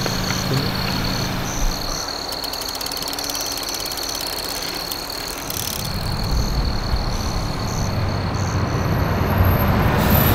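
An intercity coach bus approaches and passes. Its engine rumble and tyre noise build from about six seconds in and are loudest near the end. Under it runs a steady high-pitched chirring of night insects, with a low hum at the start.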